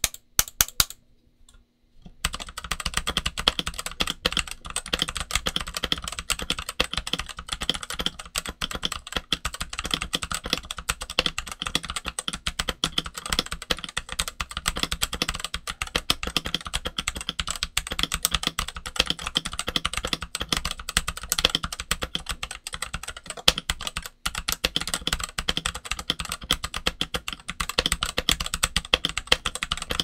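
Redragon K530 Pro mechanical keyboard with lubed Redragon Brown tactile switches and OEM-profile doubleshot ABS keycaps being typed on fast and continuously. A few separate key clicks come first, then steady rapid typing from about two seconds in.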